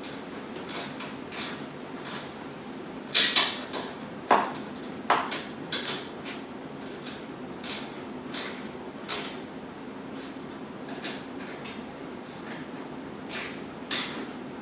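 Irregular metal clicks and knocks from handling garage door hardware (hinge brackets, roller fittings and screws), about a dozen in all and loudest about three seconds in, over a steady low hum.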